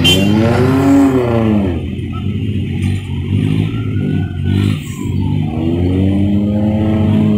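UD Quester truck's diesel engine working under the heavy load of a crane on a lowboy trailer, its revs rising and falling twice: once in the first two seconds and again near the end, with a lower, steadier running in between.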